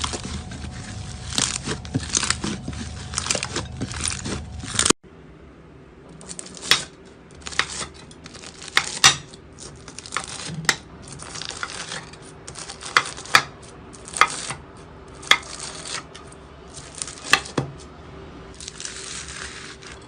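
Slime being squeezed and poked, with dense crackling for about five seconds. After an abrupt cut, separate sharp pops come roughly once a second.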